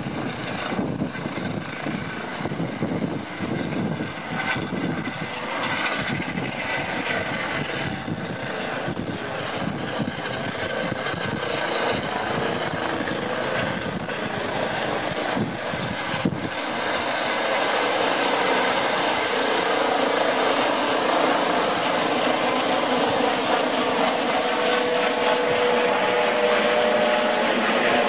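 Air ambulance helicopter taking off and climbing overhead: a steady high turbine whine over the pulsing beat of the rotor blades, which gives way about two-thirds of the way through to a slightly louder, even rush of rotor and engine noise as it passes above.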